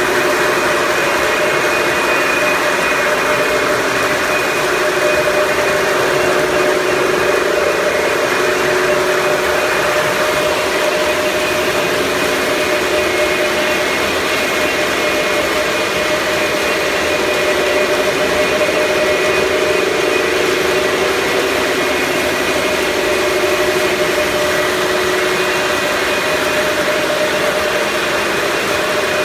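A steady mechanical hum with a few held tones, unchanging in level and pitch.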